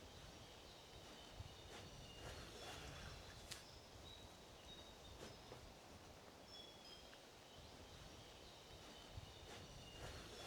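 Near silence: quiet outdoor background with faint, scattered short bird chirps and a few soft clicks.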